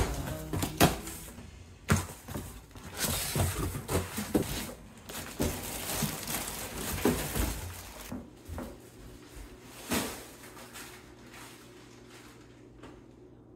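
Cardboard shipping box being opened and unpacked: packing tape being cut, and cardboard and plastic-wrapped diaper packs rustling and crinkling, with scattered knocks. After about eight seconds it drops to a low steady hum, with a single knock about ten seconds in.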